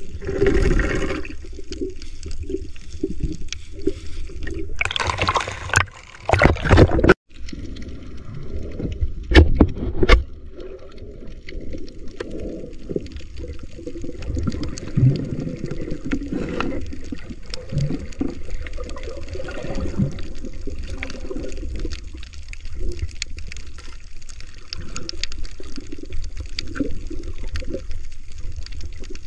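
Muffled water movement and gurgling picked up by a submerged camera, with louder rushes of noise about five to seven seconds in and again near ten seconds.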